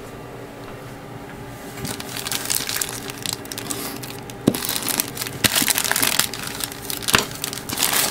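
Clear plastic parts bag crinkling and crackling as it is slit with a hobby knife and pulled open by hand, starting about two seconds in, with a few sharp clicks.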